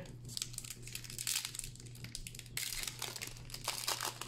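Foil wrapper of a Pokémon Brilliant Stars booster pack crinkling in the hands as it is opened and the cards are slid out. Irregular crackles, with louder spells about a second in and again near three seconds.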